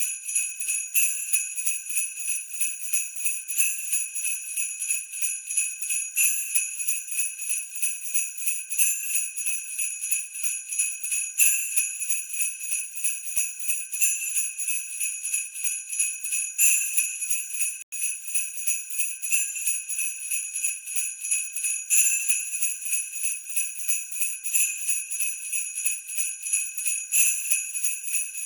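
Sleigh bells jingling in a steady, rapid shake, with a stronger accent about every two and a half seconds. The sound cuts out for a split second about eighteen seconds in.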